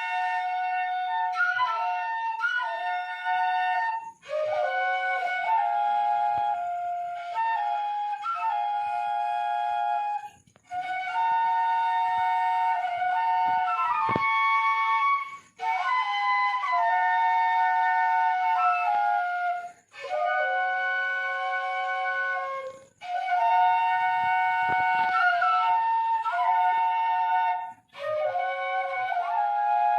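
Bamboo flutes (Papuan 'seruling emas') playing a tune with several notes at once, in phrases a few seconds long, each broken by a short pause.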